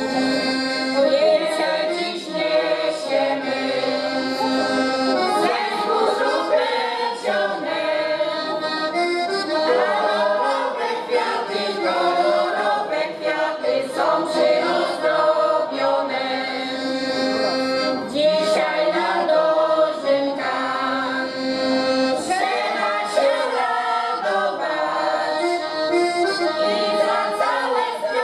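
A women's folk choir singing together to accordion accompaniment, in phrases of long held notes.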